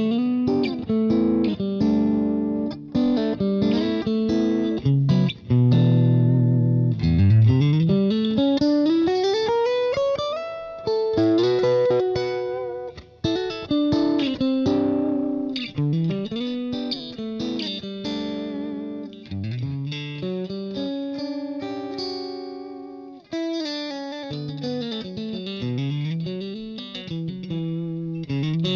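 Electric guitar played through an amp head and speaker cabinet, picked up by an AKG C414 condenser microphone in supercardioid set at the cabinet. A continuous phrase with notes sliding up in pitch several times. The tone shifts as the microphone is moved nearer to and farther from the speaker's centre.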